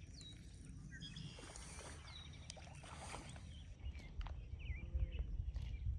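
Faint outdoor ambience: a few short bird chirps now and then over a low rumble that grows louder in the last couple of seconds.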